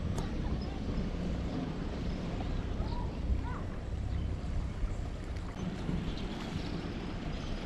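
Low, steady rumble of a sailboat's engine as the boat motors slowly through a marina, with a few faint short chirps above it.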